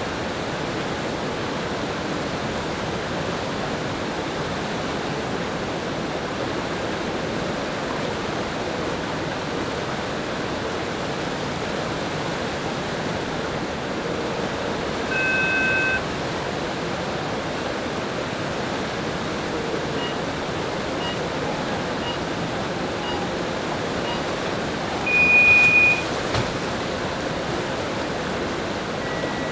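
Steady rush of whitewater rapids in a canoe slalom channel. About halfway through, a brief two-tone electronic beep sounds. Later, five short beeps about a second apart are followed by a longer, louder beep.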